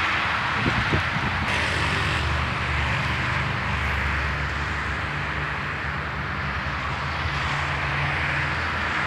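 Steady road traffic noise with the low hum of an engine running under it, and a couple of light knocks about a second in.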